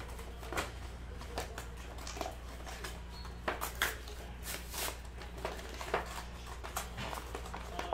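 Scattered light clicks and short rustles of trading cards and their packaging being handled, over a steady low hum.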